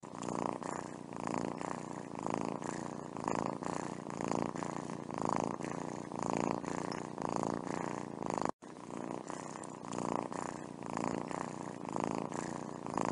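Cat purring steadily while being stroked, the purr swelling and fading about once a second with each breath, and breaking off briefly about two-thirds of the way through.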